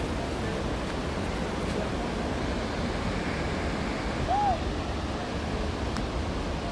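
Steady rush of water from the Kalandula waterfalls. About four seconds in comes one brief high note that rises and then falls.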